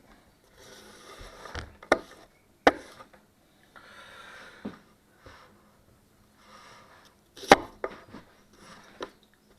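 Chef knife slicing through food in short rasping strokes, several ending in a sharp knock of the blade on the cutting board; the loudest knock comes about three-quarters of the way through.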